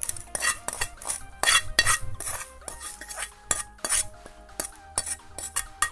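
Metal utensil scraping and knocking against a frying pan as fried tempering is scraped out into batter: a quick, irregular run of clinks and scrapes.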